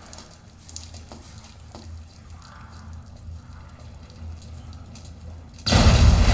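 Film soundtrack played through a Polk Audio Signature home-theater system with subwoofers: quiet low rumbling ambience with a few faint ticks, then a sudden loud burst of sound near the end that stays loud.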